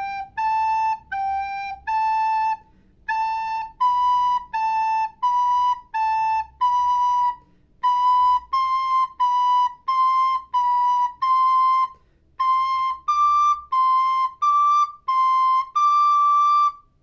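Soprano recorder playing a beginner exercise of alternating neighbouring notes, each note tongued separately about twice a second. It steps up through the pairs G–A, A–B, B–C and C–D with short pauses between groups, and ends on a longer held high D.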